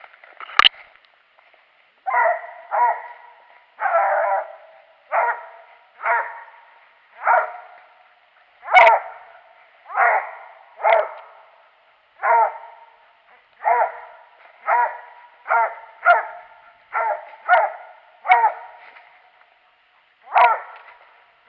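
Walker coonhound barking treed at a squirrel up a tree: short, evenly repeated barks, about one a second, signalling the squirrel is in that tree. Two sharp cracks stand out, one just before the barking starts and one about nine seconds in.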